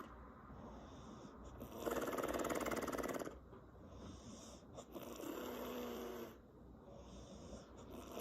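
Woman snoring in her sleep, with lip flapping. A loud, fluttering snore comes about two seconds in and lasts about a second and a half. A softer, buzzing breath follows around five seconds in.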